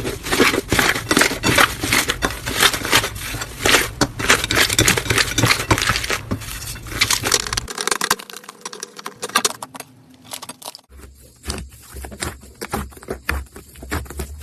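Slime being squished and worked by hand, making a dense run of crackling, popping clicks. The clicks are loudest in the first half and quieter after a change about eight seconds in.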